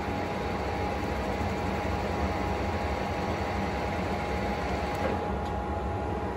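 Monarch engine lathe running with its chuck spinning while a carbide-insert tool faces the end of a small quarter-inch tube. It makes a steady machine hum with a thin, steady whine over it.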